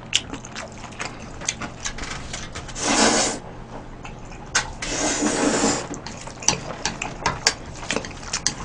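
A person slurping jjajangmyeon (black-bean-sauce noodles): a short slurp about three seconds in and a longer one around five seconds, amid wet chewing and smacking mouth clicks.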